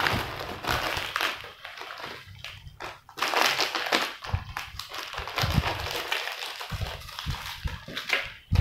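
Plastic snack wrappers crinkling and rustling in irregular bursts as a clear plastic bag and a small snack packet are handled and torn open, with a few dull thuds on the table and a louder thump near the end.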